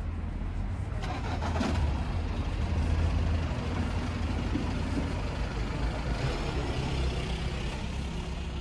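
A motor vehicle's engine running close by on the street, a steady low sound that grows louder for a while and then eases, with the general noise of traffic.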